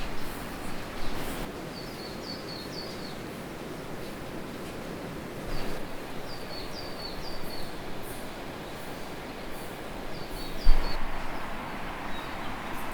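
A bird calling in three short series of quick falling chirps over a steady outdoor noise, with a single sharp knock a little before the end.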